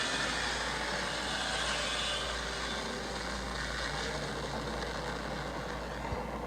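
Homemade Godzilla-style monster roar sound effect: one long, rough, sustained roar that slowly eases off.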